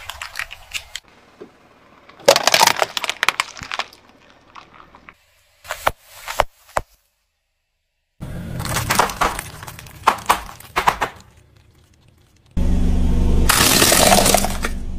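Car tyre crushing small objects in several separate takes: spells of dense cracking and crackling with sharp snaps, such as plastic cups and bags of foam beads breaking under the wheel. A silent gap falls about seven seconds in, and a loud, steady crackling starts suddenly near the end.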